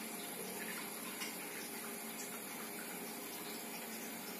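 Faint steady hiss with a low hum from the repaired Polytron XBR active speaker idling, with no crackle.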